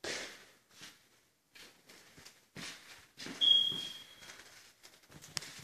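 Footsteps walking down a staircase and onto a hardwood floor, a dull step every half second or so, with one short, high squeak about three and a half seconds in.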